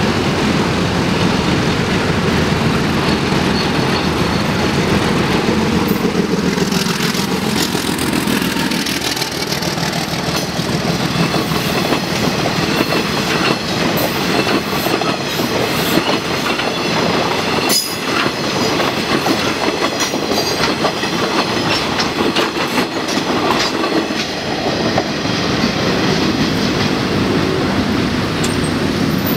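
KTM diesel-hauled passenger train passing over a level crossing. The locomotive's engine runs in the first several seconds, then the coaches' wheels clack steadily over the rail joints and the crossing, the clacks thinning out near the end.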